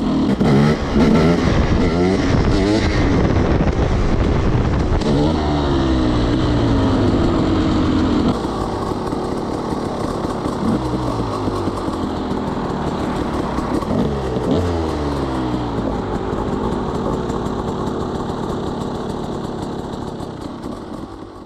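300cc two-stroke dirt bike engine being ridden, its pitch rising and falling repeatedly as the throttle is opened and the gears change. About eight seconds in it drops to a lower level, with a few more revs, then fades out at the end.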